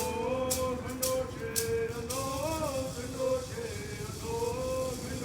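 A voice singing a chant in long held notes with slow pitch slides, with a rattle shaken about twice a second that stops about two seconds in.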